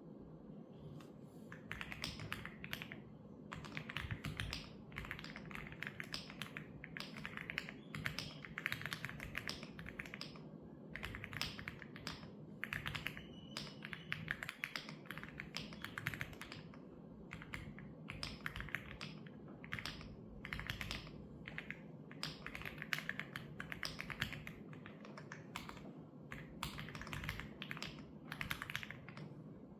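Typing on a computer keyboard: bursts of rapid key clicks, each a second or two long, with short pauses between, over a faint steady low hum.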